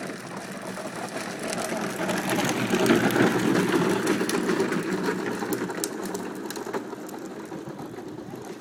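A child's bike rolling past with a rapid rattling whir from its wheels and chain. It builds to its loudest about three seconds in, then fades away.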